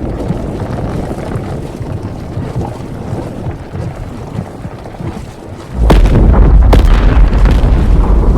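Designed volcano-eruption sound effect: a low rumble that slowly dies down, then about six seconds in a sudden loud blast with a deep rumble and two sharp cracks, the rumble staying loud afterwards.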